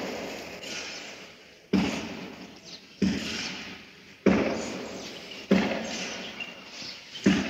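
Two ibex clashing horns as they butt heads: five sharp cracks about a second and a half apart, each fading quickly.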